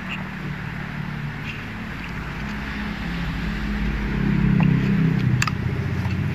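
Motor vehicle engine passing on the road, a low steady hum that swells to its loudest about four to five seconds in, with a few faint clicks of cardboard and packaging being handled.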